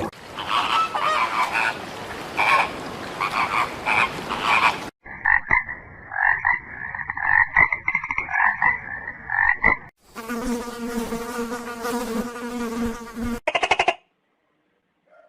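A run of short animal-call clips with abrupt cuts: frogs croaking in repeated pulsing calls, then a steadier rhythmic chorus of calls, then a continuous insect-like buzz, ending in short pulsed bursts.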